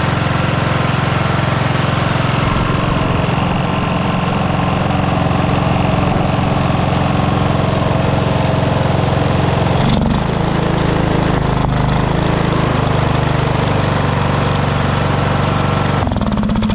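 Briggs & Stratton 14.5 hp single-cylinder overhead-valve engine on a 1997 Poulan riding mower, running loudly and steadily just after being started, its note changing about ten seconds in. The mechanic suspects a blown head gasket letting combustion gases into the crankcase.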